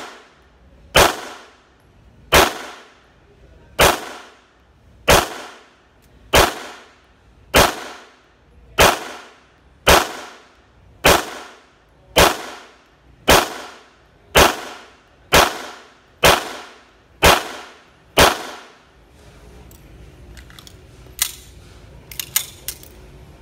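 Semi-automatic pistol fired sixteen times in slow, steady succession, a little over a second between shots, each report followed by a short echo off the range walls. The firing stops and a few light clicks follow as the pistol is handled.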